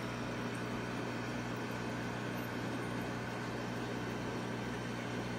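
Aquarium pump running: a steady low hum with an even hiss.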